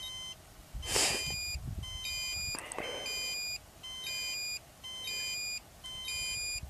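Rocket altimeter beeping out its recorded peak altitude digit by digit: a series of short, high electronic beeps, about one a second. A brief rush of noise breaks in about a second in.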